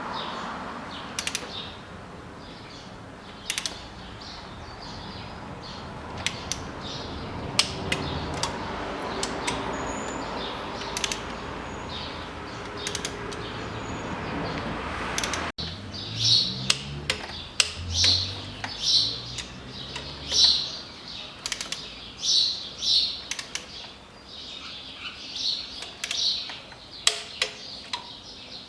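Scattered sharp clicks of a wrench tightening diesel injector hold-down bolts to torque. After a sudden break about halfway, small birds chirp over and over, about once a second, with a few more clicks.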